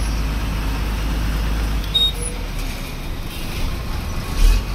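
Road traffic noise: vehicle engines running with a steady low rumble, and a brief low thump near the end.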